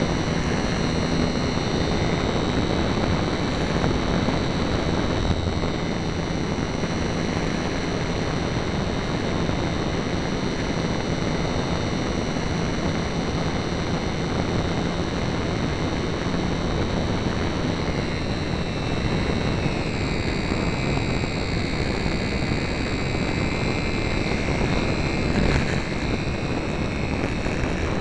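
HobbyZone Super Cub RC airplane in flight, heard from a camera mounted on the plane: a steady high electric-motor whine and propeller buzz over rushing wind. The whine changes pitch about two-thirds of the way through.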